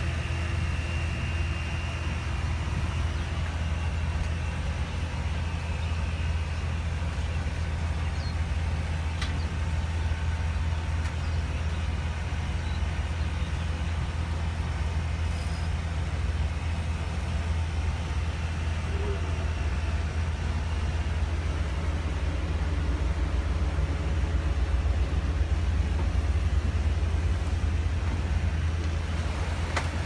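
Steady low drone of a boat's inboard engine under way at slow cruising speed, growing a little louder in the last few seconds as a motor cruiser passes close alongside.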